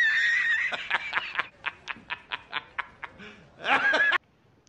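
A man laughing hard and high-pitched. It starts as a drawn-out cackle, breaks into a quick run of short 'ha' bursts, about five a second, and ends in one loud shrill peal that cuts off suddenly.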